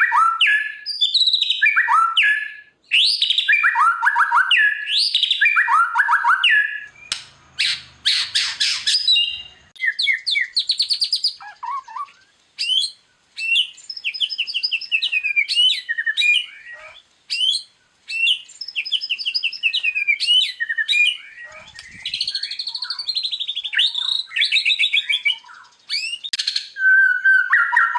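White-rumped shama (murai batu) singing a long, varied song. Loud falling whistled phrases give way to a harsh rattling passage about eight seconds in, then quick trilled and chattering phrases. This is the gacor song, packed with imitated 'isian' phrases, that keepers play to tutor birds.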